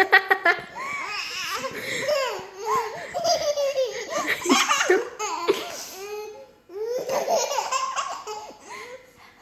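People laughing hard in repeated high-pitched bursts, breaking off briefly about two thirds of the way through before starting up again.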